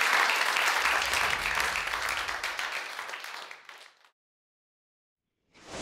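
Audience applauding, the clapping fading out about three to four seconds in. After a moment of silence, a whoosh sound effect starts at the very end.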